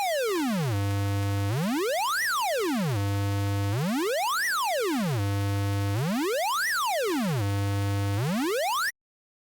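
Synthesized tone sonifying a mathematical shape: it glides down from a high pitch to a low one, holds a buzzy low note for under a second, then glides straight back up, three times over, each cycle about two seconds long. It cuts off suddenly near the end.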